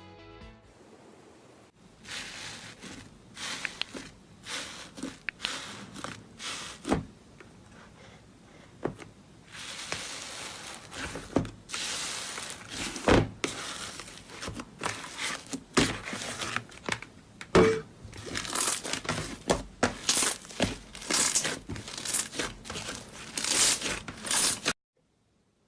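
Slime being squeezed and stretched by hand, giving a dense run of irregular crackling, crinkling pops that grows busier toward the end and cuts off abruptly about a second before the end.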